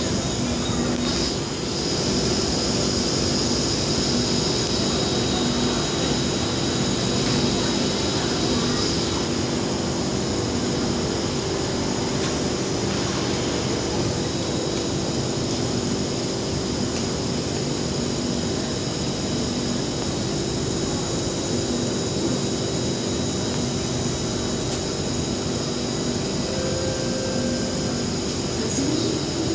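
Steady mechanical rumble and hum filling an underground MRT station, with no breaks or sudden sounds.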